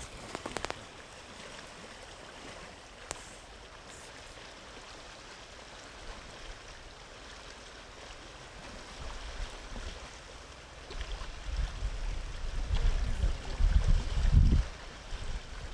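Shallow river rushing steadily over a gravel riffle. From about eleven seconds in, wind gusts buffet the microphone with low rumbles that become the loudest sound.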